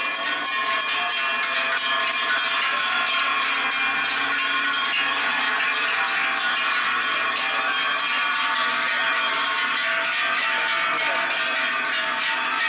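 Many large cowbells clanging together without a break as a herd of cows walks past, the bells swinging on their neck straps with each step into a dense, overlapping jangle of many pitches.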